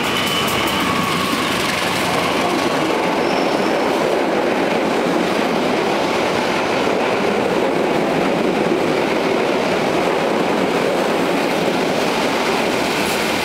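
A locomotive-hauled passenger train of Kereta Api Indonesia coaches running through the station at speed: a loud, steady rumble and rattle of steel wheels on the rails.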